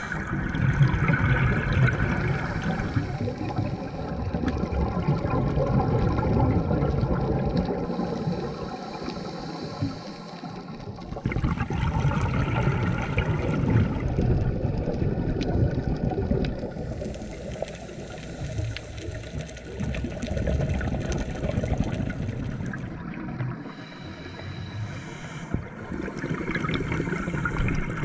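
Underwater sound picked up through a camera housing on a scuba dive: the gurgling and rushing of exhaled regulator bubbles. The sound shifts abruptly a few times.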